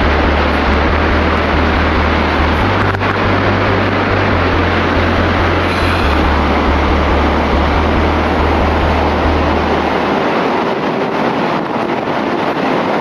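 Steady roar of Niagara Falls, with wind rumbling on the microphone. The deep rumble drops away about ten seconds in, leaving the rush of the water.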